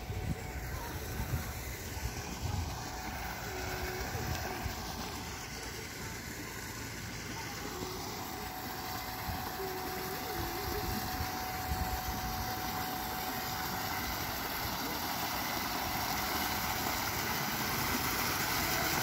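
Pool cascade spout pouring a sheet of water into a swimming pool: a steady splashing rush that grows louder as it comes closer, with a faint steady hum joining about a third of the way in.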